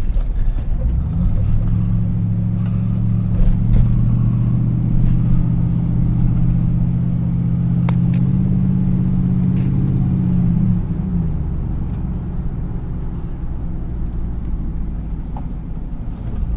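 Car engine and road rumble heard from inside the cabin while driving, the engine note rising and holding steady from about a second in, then easing off near the eleven-second mark, with a few scattered clicks.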